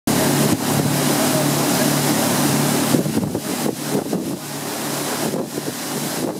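A motorboat's engine runs steadily under a constant rush and splash of water along the hull. The engine hum is clearest for the first three seconds, after which the uneven splashing of water takes over.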